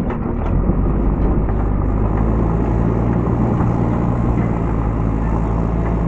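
JCB 3DX backhoe loader's diesel engine working under load: a steady engine drone that grows louder and firmer about two seconds in and then holds, with a few light clanks in the first second.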